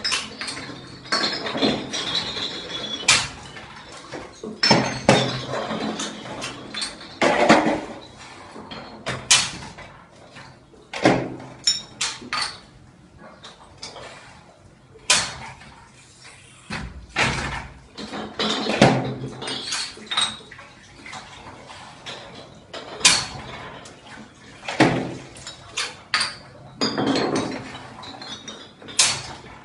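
Glass soft-drink bottles clinking and the metal lever of a hand-operated bottling machine clanking, in irregular sharp knocks, some ringing briefly.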